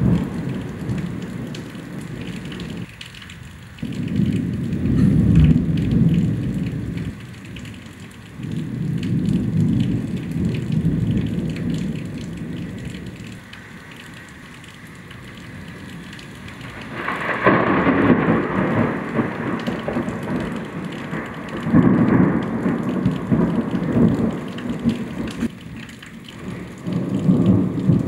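Thunder from a close lightning storm: several long low rolls, one after another, over steady heavy rain. About two-thirds of the way through one clap starts more sharply and reaches higher than the rest.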